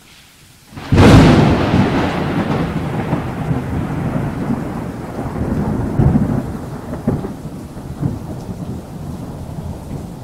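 Thunderclap sound effect with rain: a sudden loud crack about a second in, then a long rolling rumble with several further low swells, slowly fading.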